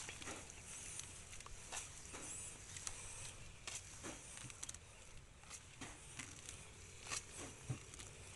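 Faint, irregular rustling and soft footsteps on grass and weeds among eggplant plants, over a steady high hiss.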